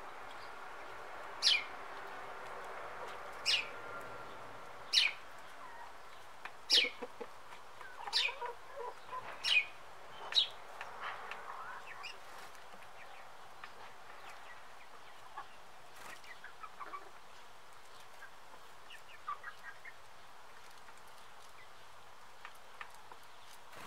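Backyard chickens clucking, with about seven short, sharp high chirps a second or two apart through the first ten seconds, then fainter scattered calls.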